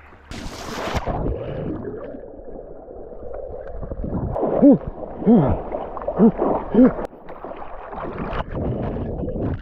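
Lake water sloshing and splashing around a person wading in, with a brief splash just after the start. Around the middle come four short groans that each rise and fall in pitch, an exaggerated reaction to the water.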